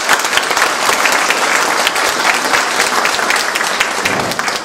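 Audience applauding: many hands clapping at a steady level, dying away near the end.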